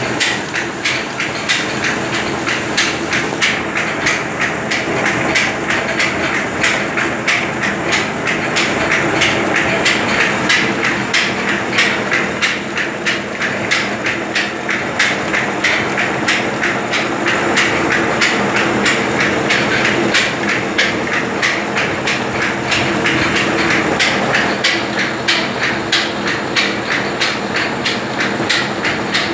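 Belt-driven flour mill (chakki) running, with a fast, even mechanical clatter over a steady machine hum.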